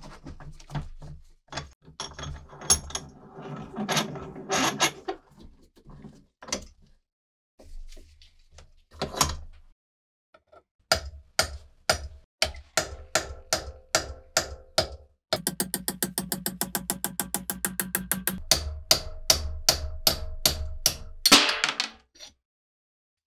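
A hammer striking a pin punch to drive the rusted pivot pin out of an antique saw tooth setter held in a vise: spaced blows about two a second, a fast run of light taps about eight a second in the middle, then more blows and a final scrape as the pin comes free. Before the punching there are clicks and handling noise as the vise jaws are fitted.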